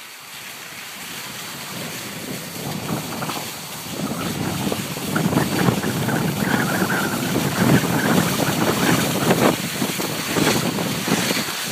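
Skis sliding and scraping over packed snow, with wind blowing on the microphone; the noise grows louder about four seconds in as the skier picks up speed.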